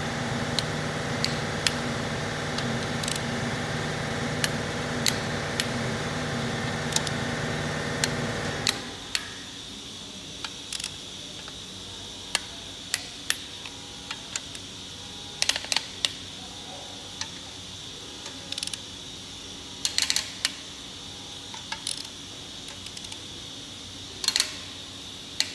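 Click-type torque wrench and socket on cylinder head bolts: sharp metallic clicks now and then as the bolts are torqued down in stages. A steady machine hum underneath cuts off about nine seconds in.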